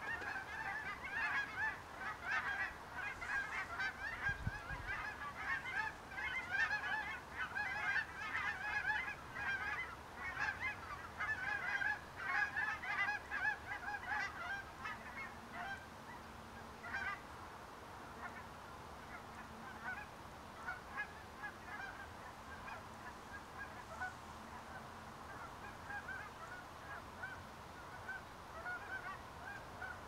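A flock of Canada geese honking, many calls overlapping in a busy chorus that thins to scattered honks about halfway through.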